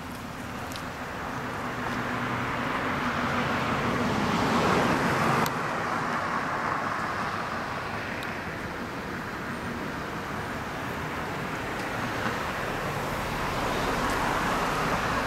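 Road traffic noise from cars passing on a residential street: a broad rushing sound that swells to a peak about five seconds in, breaks off suddenly, and builds again near the end.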